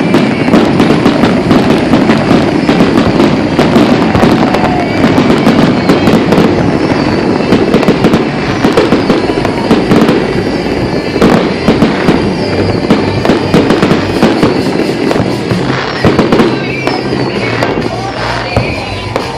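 Aerial fireworks bursting in a rapid, continuous barrage of booms and crackles, easing off slightly near the end, where a few high whistles are heard.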